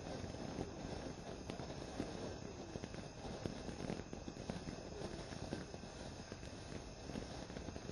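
Consumer firework fountain burning steadily, a continuous hiss packed with fast, dense crackling from its spark spray.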